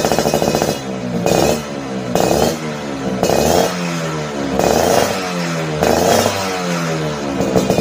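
Suzuki Tornado two-stroke motorcycle engine through a 'standard racing' aftermarket exhaust, idling, then blipped five times in a row, the revs falling away after each blip, before settling back to idle near the end.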